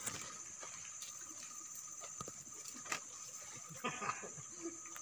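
Steady high-pitched buzz of insects, with a few light knocks and a little water sound from handling at the river.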